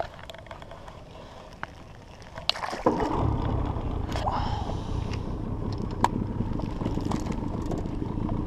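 Fishing boat's motor comes on about three seconds in and runs steadily, with water noise under it.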